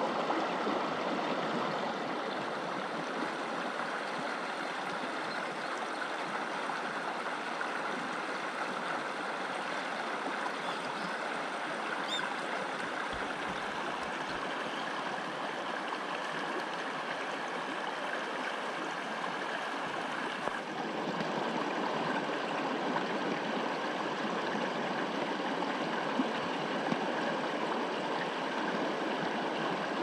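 Shallow mountain stream running over rocks: a steady rush of water that shifts slightly in tone about two-thirds of the way through.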